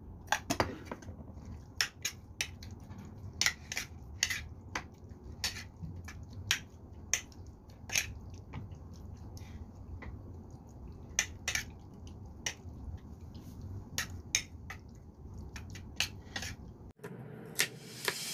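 Metal spoon clinking and scraping against a ceramic plate while tossing raw fish fillet chunks in their marinade, in irregular clinks about every half second. The clinking cuts off suddenly near the end.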